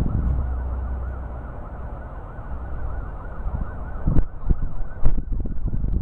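An electronic siren yelping, its pitch rising and falling about four times a second, over the low rumble of strong wind. From about four seconds in, gusts of wind hit the microphone in loud, sudden bursts.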